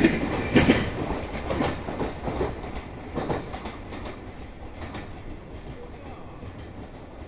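Container freight train's wheels clacking over rail joints as the last wagons pull away, the sound fading steadily. The clacks come about once a second and grow weaker.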